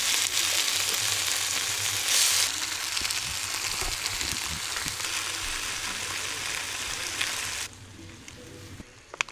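Garlic-marinated pork collar slices sizzling loudly in a hot pan as fried rice is started. The sizzle swells briefly about two seconds in, stops abruptly near the end, and is followed by a single sharp click.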